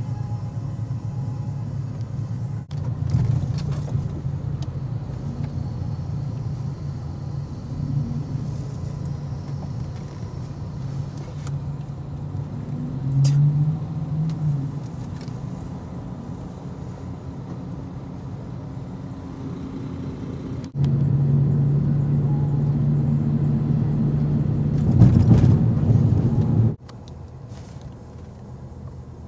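Motor vehicle noise: a steady low engine and road rumble from cars, with short swells in pitch, in several segments that change abruptly.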